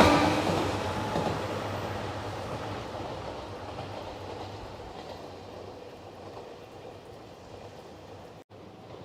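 A train running past on the rails, its wheels clattering over the track as the sound fades steadily away over several seconds.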